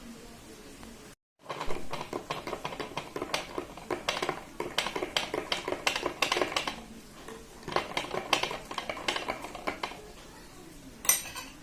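Rapid, irregular clinking and tapping in bursts, like cutlery or hard objects knocking on dishes, after a brief moment of silence about a second in.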